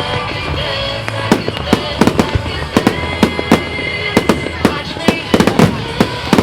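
Fireworks going off in rapid, irregular cracks and bangs, several a second, starting about a second in, with music playing underneath.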